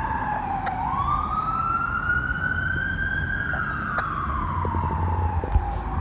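Fire truck siren on a slow wail: the pitch falls, then climbs for about two and a half seconds, falls again for about as long, and starts climbing once more near the end, heard from well down the street.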